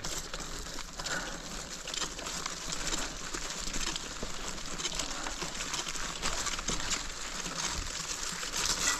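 Mountain bike riding over a rough ochre-clay dirt track: tyres rolling with a steady hiss and many small clicks and crackles from grit and clumps of clay.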